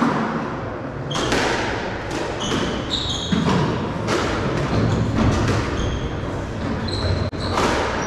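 Squash rally: sharp cracks of the ball off rackets and walls every half second to a second, with short high squeaks of shoes on the wooden court floor between the shots.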